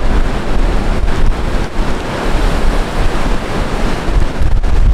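Heavy ocean surf: big waves breaking and washing in foam, a dense continuous rush with a deep rumble, with wind buffeting the microphone.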